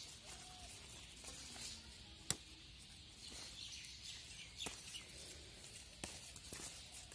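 Faint birds chirping over a quiet outdoor background, with four sharp snaps a second or two apart as sweet potato leaves are picked off the vines by hand.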